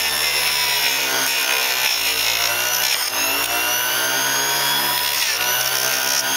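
Neiko variable-speed mini bench grinder's motor running at high speed while a block of scrap wood is pressed against its grinding wheel and ground, with a rubbing grind from the wood. The motor's pitch dips and recovers several times as the wood bears on the wheel, most clearly about three and five seconds in.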